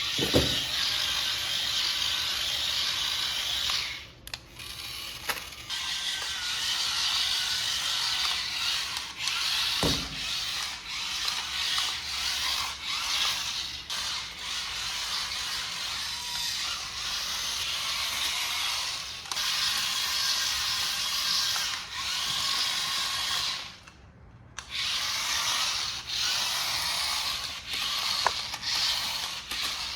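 Toy RC car's small electric motor and plastic gearbox whirring and grinding in long bursts, stopping briefly a few times, with a couple of knocks about ten seconds apart.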